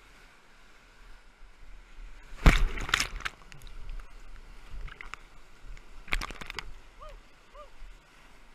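Rushing whitewater of a river rapid at high flow, heard from inside a kayak, with waves crashing over the boat and camera twice: a loud splash about two and a half seconds in and another about six seconds in.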